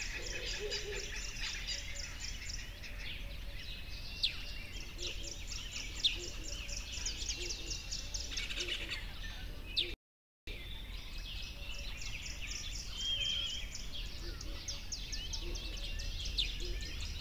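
A dense chorus of bird chirps and trills over a steady low rumble. The sound cuts out for about half a second near the middle, then resumes.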